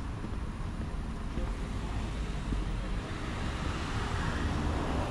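Steady city street noise: a low traffic rumble under a general outdoor hum, with no distinct single event.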